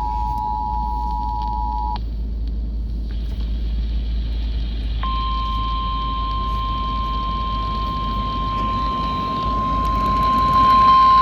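Emergency Alert System attention tones announcing a National Weather Service flash flood warning. The two-tone EAS attention signal cuts off about two seconds in. After a short gap, the single steady 1050 Hz NOAA Weather Radio warning tone starts and holds, over a steady low rumble.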